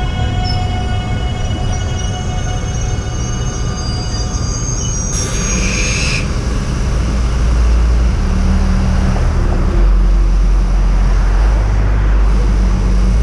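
South Shore Line electric commuter train slowing to a stop: a whine of several steady high tones from the running gear fades out within the first few seconds, and a short hiss follows about five seconds in. After that a low, steady rumble holds, and a car passes near the end.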